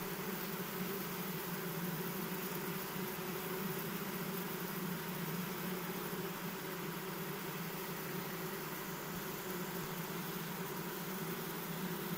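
Queenless honeybee colony humming: a steady, even drone from the mass of bees in the hive, the hum that marks a colony without its queen.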